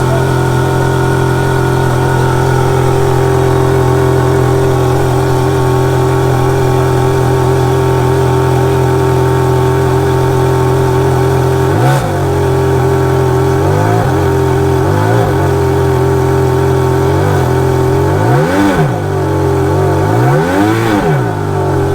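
A sports car's engine idling steadily, then blipped on the throttle about six times in the second half, each rev rising and falling quickly, the last two higher and longer.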